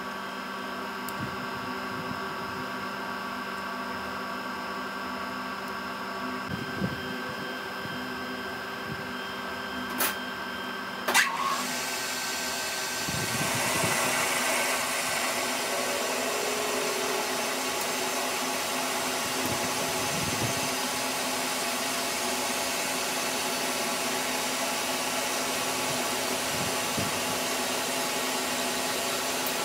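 Metal lathe running with a steady motor whine of several tones. Two sharp clicks come about ten and eleven seconds in, and from about thirteen seconds the sound grows louder and rougher as the cutting tool turns down the steel shaft.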